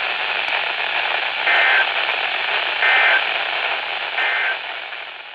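Emergency Alert System end-of-message signal: three short warbling two-tone data bursts about 1.4 seconds apart, over steady radio static that fades out near the end.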